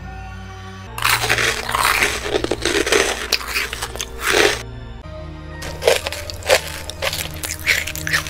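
Crunchy eating sounds: a dense run of loud crunching bites starting about a second in, then a few separate sharp crunches and cracks near the end, over background music.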